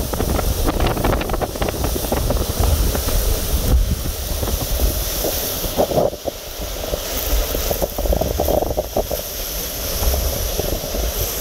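Category 2 hurricane winds in the storm's inner core, loud and gusting, with wind-driven rain and heavy wind buffeting on the microphone.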